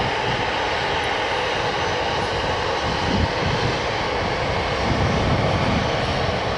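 Airliner engines running, a steady, loud, even rush of noise with no break.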